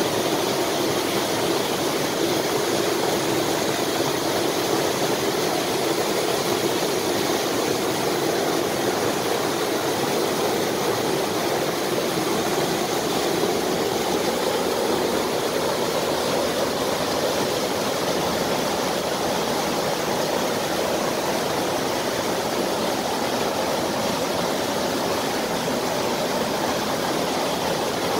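Water pouring over and through the wooden gates of a canal lock into the chamber: a steady rushing.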